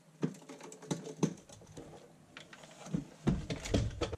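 Sharp plastic clicks and knocks as a Neato Botvac robot vacuum's plastic housing is handled, then a cluster of louder bumps near the end as the robot is turned over and set down on the bench mat.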